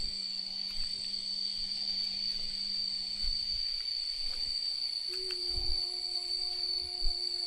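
Insects droning with one steady high-pitched tone, over a few soft low thumps. A fainter low steady hum changes pitch about halfway through.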